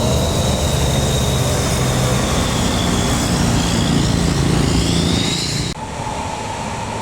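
Diesel engine of an intercity bus running loud as it drives past, with a thin high whine over the engine. About six seconds in the sound cuts off abruptly to a quieter engine hum with a steady whine.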